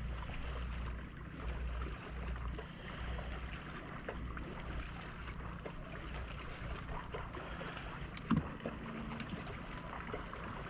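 Small fishing boat on a lake: water lapping and trickling at the hull over a steady low rumble, with scattered small ticks and a single knock about eight seconds in.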